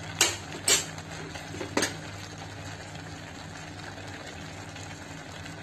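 A steel spoon clinks against the kadhai three times in the first two seconds, over the gentle bubbling of a thickening milk mixture simmering on a low flame and a steady low hum.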